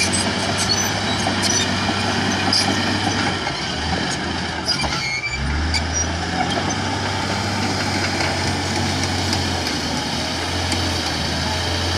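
Komatsu D155A bulldozer's diesel engine running steadily, now operational after a no-start fault was fixed. Its low hum wavers briefly about five seconds in, then carries on.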